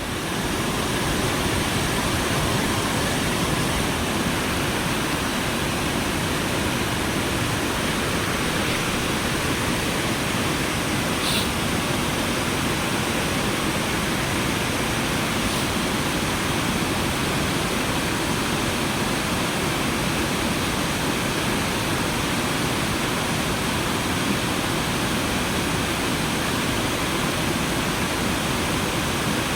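A steady, even rushing noise with no rise and fall.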